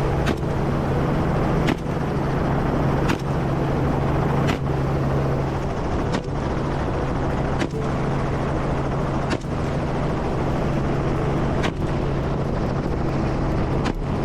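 Helicopter running steadily with a constant low hum, broken by short sharp cracks roughly every second and a half.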